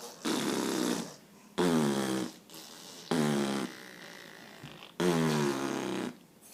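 A young child making four loud, buzzy voice noises, each up to about a second long, with short pauses between them.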